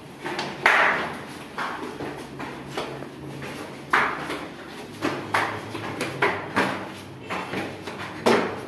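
A welded steel rebar frame clanking and knocking irregularly, about a dozen short metallic knocks with brief ringing, as it is carried up a staircase and bumps against the steps and railing.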